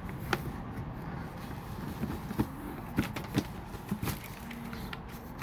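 Cardboard shoebox lid being worked off a snug-fitting box: scattered taps, scrapes and rustles of hands on cardboard, with a few sharp clicks.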